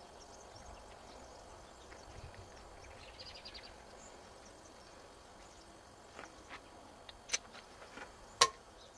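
Faint outdoor background with a short high trill about three seconds in. Near the end come a few light clicks and one sharp metallic clink as the parts of the reassembled air hammer are handled.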